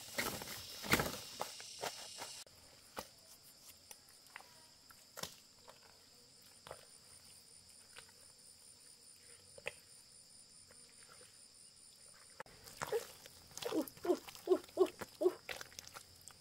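Wet mud squelching and splatting as bare hands dig and scoop it. A quick run of squelches comes near the end, over a steady chirping of insects.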